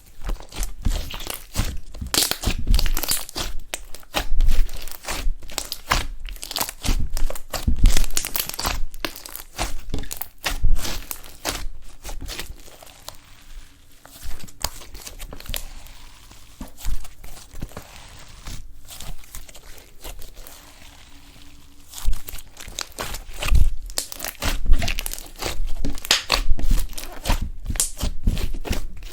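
Eyeshadow slime being squished and stretched by hand, giving dense bursts of sticky crackling and popping, with a quieter stretch in the middle.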